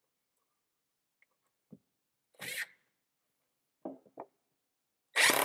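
A few faint knocks and a brief rustle as the tool is set in place, then near the end a cordless drill-driver starts up at full speed, driving a screw into a wooden shelf from underneath.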